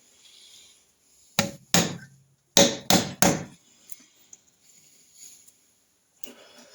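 Hammer blows on metal, five sharp strikes with short ringing after each: two, a pause, then three. They are tapping a seized engine sprocket held under tension by a puller, to jar it loose from the crankshaft.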